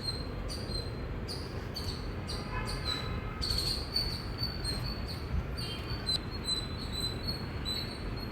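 Squirrel chirping: short, sharp, high-pitched calls repeated about twice a second, over a steady low background rumble.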